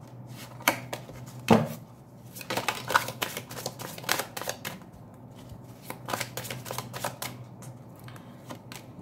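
A deck of tarot cards being shuffled by hand: irregular runs of quick card flicks and slaps, the sharpest about one and a half seconds in.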